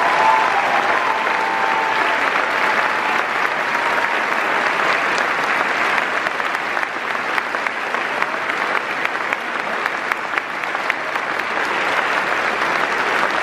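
A large audience applauding, a long, steady round of clapping from many people.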